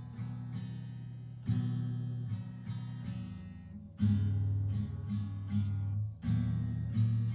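Acoustic guitar played slowly, strummed chords ringing out with plucked notes between them, a new chord struck about every two seconds.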